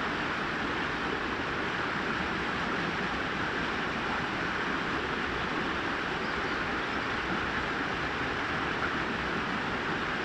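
Brook water cascading over rocks, a steady, even rushing.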